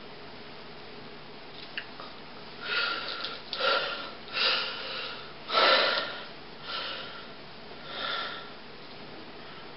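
A person sniffing about six times, short breathy sniffs roughly a second apart, starting a few seconds in.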